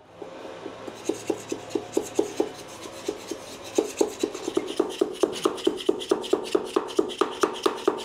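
A wooden dowel ramming a silicon carbide sand mix down into a small plastic mold: a steady run of short knocks, about four a second, soft at first and louder from about four seconds in.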